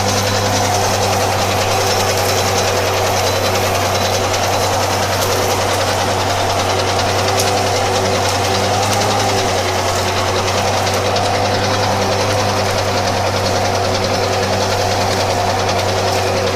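ZTS 16245 tractor's diesel engine running steadily, easing off slightly a little past the middle.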